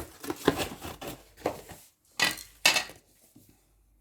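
Plastic wrapping being crinkled and torn off a cardboard box, with the box handled and knocked: irregular rustling for about two seconds, two louder sharp noises a little after two seconds in, then it goes quiet.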